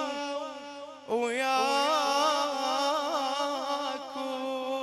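A male radood's solo voice chanting a Shia lament in long, ornamented held notes with vibrato, breaking off briefly about a second in before a long sustained note.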